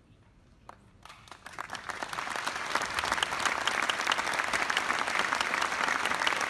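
Large audience applauding in a hall: a few scattered claps about a second in, swelling into dense, steady applause.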